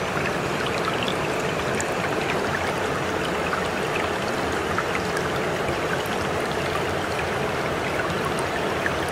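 Steady sound of running water, like a flowing stream, with small splashy ticks scattered through it.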